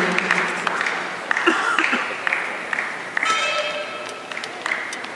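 Arena crowd applause dying away after a point, thinning to scattered claps, with a few voices in the crowd and a brief high call about three seconds in.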